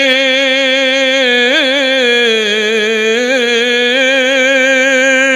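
A man's solo voice holding one long drawn-out sung note at the end of a line of a Bengali devotional song, with a few small ornamental wavers in pitch and a slight dip partway through.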